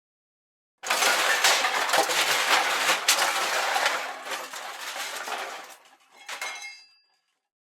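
A sudden crash of objects smashing, with a dense clinking and clattering of pieces that holds for a few seconds and then dies away, ending with a brief last scatter of pieces.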